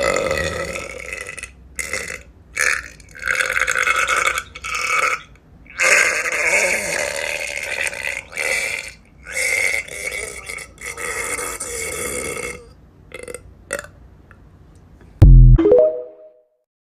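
A person burping over and over: a quick run of drawn-out burps, some short, some held for a second or two, with brief pauses between. Near the end comes one sudden loud low thump with a short pitched tail.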